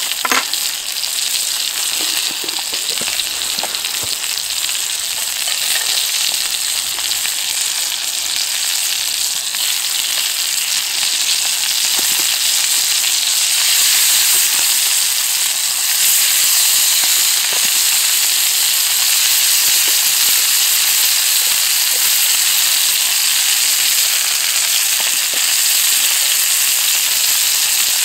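Boerewors sausage frying in hot fat in a black pan, a steady sizzle with scattered small pops and spits. The sizzle grows louder about halfway through as potatoes go into the pan beside the sausage.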